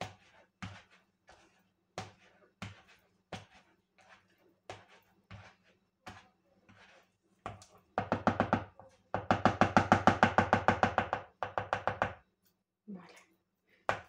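Potato masher mashing cooked vegetables into beaten egg in a plastic bowl, a soft knock about every two-thirds of a second. About eight seconds in comes a much louder run of rapid taps, about ten a second, for some four seconds, which fits the masher being knocked against the bowl to shake it clean.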